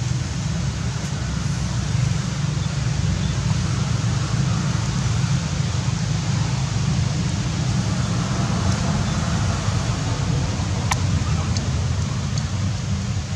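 Steady outdoor background noise: a heavy low rumble under an even hiss, with a few faint sharp clicks about eleven seconds in. No monkey calls are heard.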